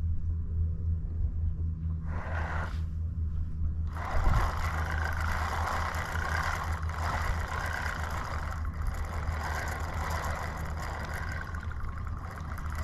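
A motor running steadily with a low hum, joined about four seconds in by a loud, even hiss of wind or water.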